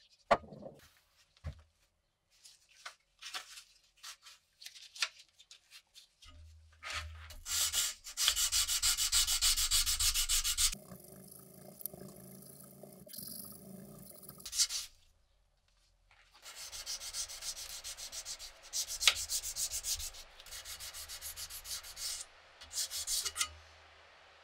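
Hand sanding of a rusty steel sickle blade with sandpaper wrapped around a wooden stick: quick back-and-forth rubbing strokes in runs of several seconds, with a short pause between them, scrubbing off rust from the oiled blade. A few clicks and knocks of handling come in the first seconds.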